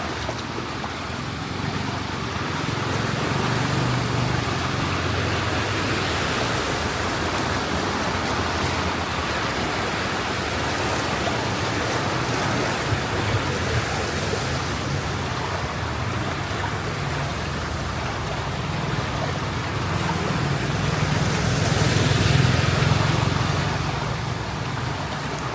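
Traffic moving through floodwater on a flooded city street: a steady wash of churning water with low engine hum, swelling as a vehicle passes close about twenty seconds in.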